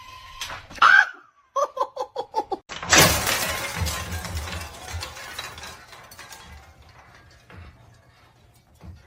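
A quick run of short pitched blips, then a loud sudden crash of something shattering that dies away over about three seconds.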